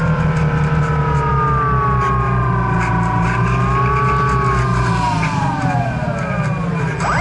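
Electric pusher motor and propeller of a Multiplex EasyStar II RC plane whining in flight. The pitch falls slowly as the throttle is eased back, dips lower near the end, then rises sharply as the throttle is opened again.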